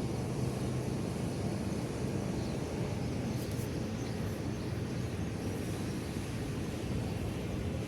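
Steady low rumble with a faint hum.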